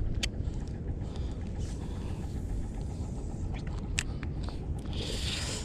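Wind buffeting the microphone as a steady low rumble, with a few sharp clicks about a quarter second in and about four seconds in, and a short hiss just before the end.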